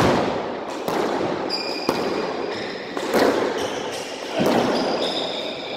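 Squash rally: the rubber ball struck by racquets and slapping off the court walls in sharp hits about once a second, each ringing briefly in the hard-walled court, with sneakers squeaking on the wooden floor.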